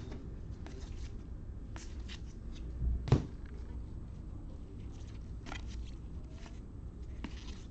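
Trading cards being handled and flipped through: soft scattered clicks and slides over a low steady hum, with one sharper tap about three seconds in.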